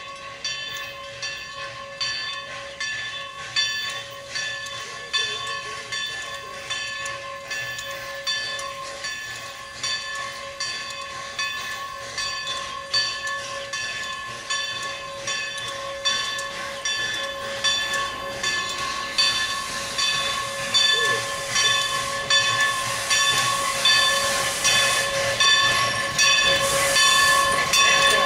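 Steam locomotive bell on the 2-6-0 Mogul ringing steadily, about two strokes a second, growing louder as the engine pulls its train in toward the platform. Steam hiss builds in the second half as the locomotive comes close.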